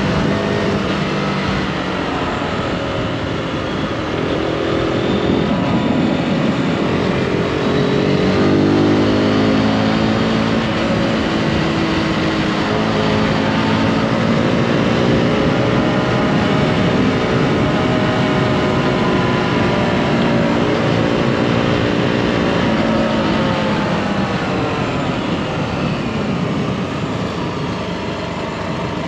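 Zontes G155 Scrambler's single-cylinder engine under way, its note rising and falling as the rider rolls the throttle on and off through the bends, over a steady rush of wind noise.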